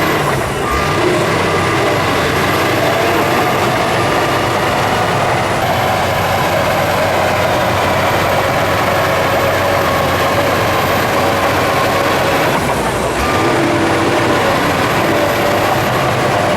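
Heavy diesel engine of earthmoving machinery running steadily under load, with a high whine over the hum and a short dip in the noise twice.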